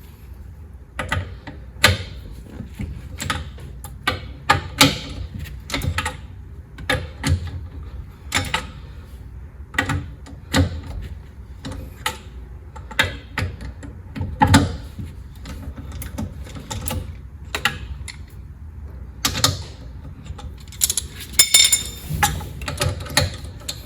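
Hand tools working on metal car parts, likely a ratchet wrench: irregular metallic clicks and knocks about once or twice a second, with a short metallic ring near the end.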